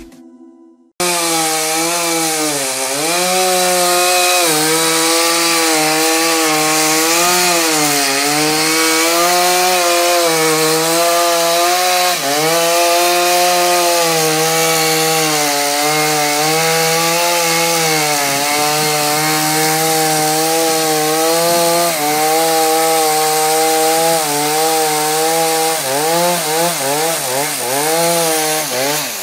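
Chainsaw cutting into wood, starting abruptly about a second in; its engine pitch sags under load and recovers again and again as the chain bites. Near the end the saw is revved and eased off several times in quick succession.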